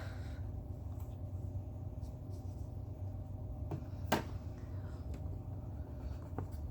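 Steady low room hum with a few light clicks and taps, the sharpest about four seconds in.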